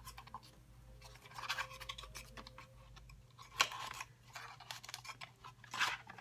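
A paperboard product box being handled and opened: scattered scraping and rustling of cardboard flaps, with a sharper scrape about three and a half seconds in and another near the end.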